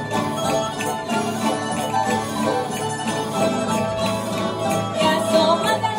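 A live folk band with acoustic guitars plays lively Andalusian dance music, with a steady beat.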